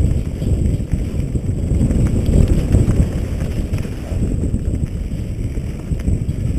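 Wind buffeting a helmet-mounted camera's microphone, mixed with the mountain bike's tyres and frame rattling over a bumpy dirt trail at speed.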